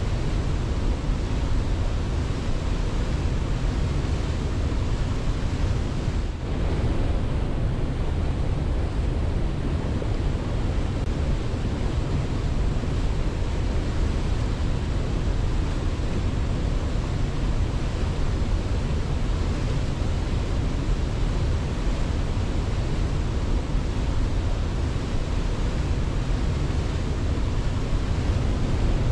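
Steady, even rushing of water, like a waterfall or surf, with no birdsong standing out. It drops out for a moment about six seconds in.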